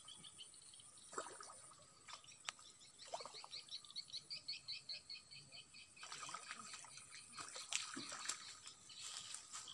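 Faint water sloshing and splashing at a swamp bank, growing louder in the last few seconds. A rapid run of high ticks comes in the middle.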